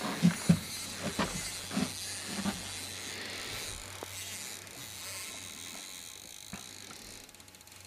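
Spinning reel working against a large fish: a few low knocks of handling in the first couple of seconds, then a steady hissing buzz of the drag letting out line, with fine rapid clicking near the end, fading gradually.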